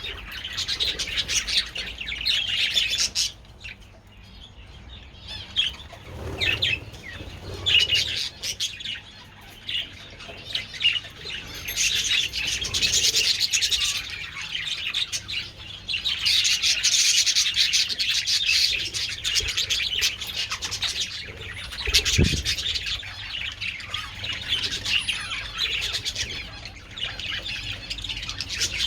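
A flock of budgerigars chattering and chirping continuously, swelling and fading in waves, with a quieter lull a few seconds in and a brief low thump a little past the middle.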